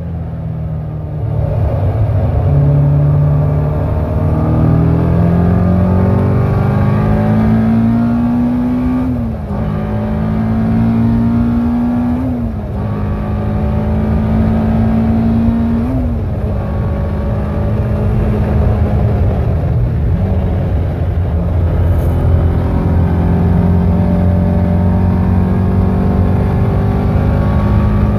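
Caterham R400's four-cylinder engine at full throttle, heard from the open cockpit, revving up through the gears: the pitch climbs and drops sharply at three quick upshifts in the first sixteen seconds. After a small dip around twenty seconds it holds a steady high-speed note.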